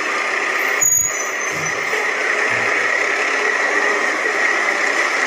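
Fire department aerial ladder truck pulling out, its diesel engine running as a steady, noisy drone, with a short knock about a second in.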